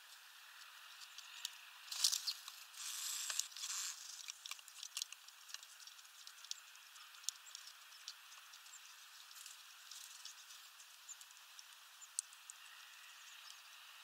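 Small birds feeding on sunflower seeds at a window feeder, a great tit and then a male Eurasian bullfinch: faint scattered clicks and ticks of bills and feet among the seeds and on the perch. A louder rustling flurry comes about two seconds in and lasts nearly two seconds. No calls.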